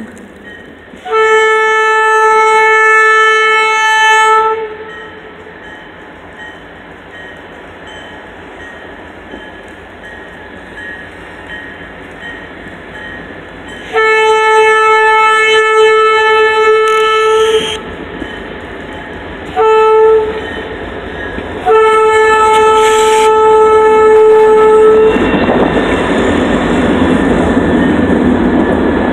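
Diesel freight locomotive's air horn sounding the grade-crossing signal: two long blasts, one short, one long. The locomotive then passes close by with a loud rumble.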